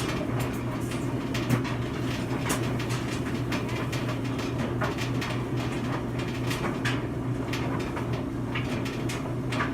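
Steady low hum of a laundry-room machine running, with scattered small clicks and handling noises over it.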